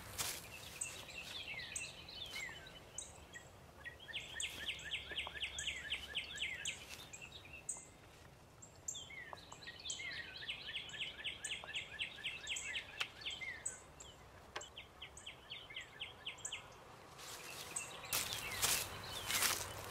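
A songbird singing twice: a few short slurred chirps lead into a fast trill of repeated notes lasting about three seconds, over quiet woodland background. Near the end come close crackling rustles and knocks of someone moving in leaf litter.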